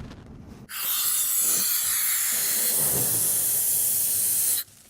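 Air hissing loudly and steadily, starting suddenly under a second in and cutting off sharply near the end.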